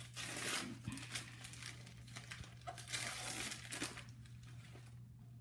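Gift wrapping paper being torn and crumpled as a present is unwrapped, in two louder spells of rustling, the second about three seconds in, then quieter handling near the end.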